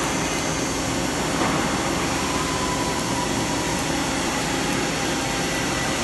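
Steady hum and hiss of running shop machinery, with faint steady whining tones and no distinct knocks.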